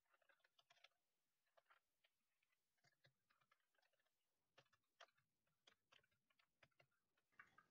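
Near silence with faint, irregular clicks of computer keyboard typing, a few of them a little louder around the middle and near the end.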